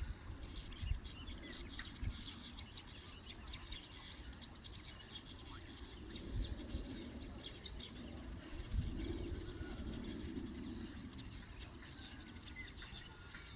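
Outdoor evening ambience: a steady, high, pulsing insect trill with many short bird chirps scattered over it, and a low rumble underneath.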